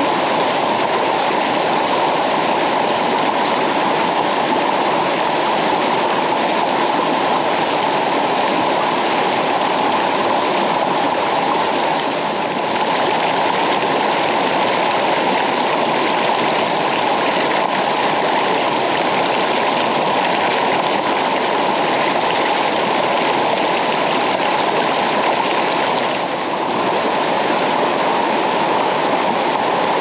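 Steady, loud rush of water from a waterfall and rocky stream cascade, dipping briefly twice.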